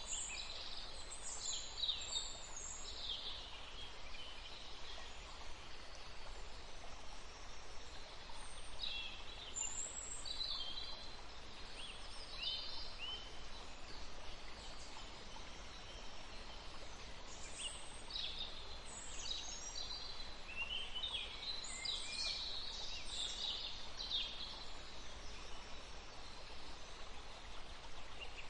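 Several small forest birds chirping and singing in short, high trills and whistles that come in scattered clusters, over a steady faint background hiss.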